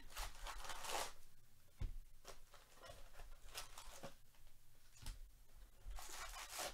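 Foil trading-card packs and a cardboard hobby box rustling and crinkling as they are handled, in several short bursts, the loudest near the start and near the end, with a soft knock about two seconds in.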